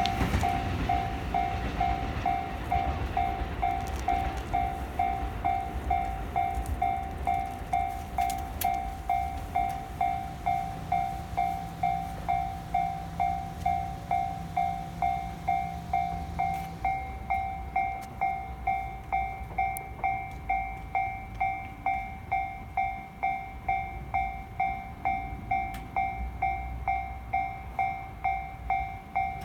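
Japanese level-crossing electronic warning bell ringing steadily at about two dings a second, the signal that the barriers are down for an approaching or passing train. A passing train's rumble fades out over the first few seconds.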